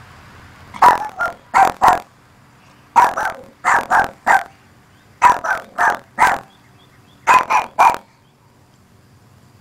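Maltese dog barking at her own reflection, which she takes for another dog: four quick volleys of three to five sharp, high barks, then she falls quiet near the end.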